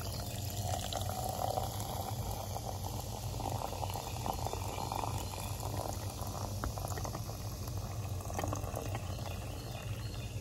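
Sparkling water poured into a glass jar over ice and frozen grapes, the carbonation fizzing with a steady fine crackle.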